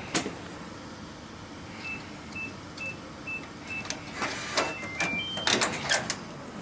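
Electronic keypad door lock: five short identical beeps about half a second apart as a passcode is entered, then a quick four-note tune as it unlocks. This is followed by several clacks of the latch and door.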